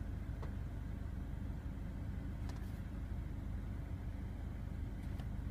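Car engine running steadily, heard as a low rumble from inside the cabin, with a few faint clicks.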